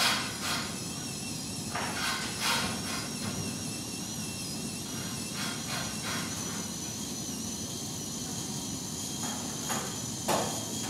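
Homemade jumping robot's mechanism making scattered clicks and knocks, about eight to ten over several seconds, over a steady hiss with a faint high whine.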